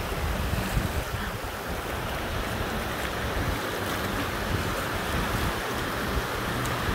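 Low surf breaking and washing up a sandy beach, a steady wash of water, with wind buffeting the phone's microphone as a gusty low rumble.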